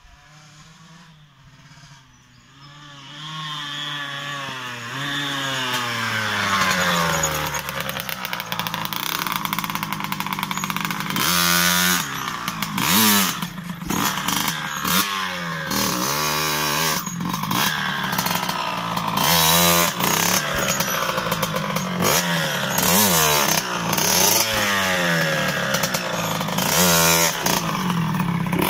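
A 1989 Kawasaki KX60, a small single-cylinder two-stroke dirt bike, coming closer and growing louder over the first several seconds, then revved again and again in sharp blips that rise and fall in pitch before it rides up close.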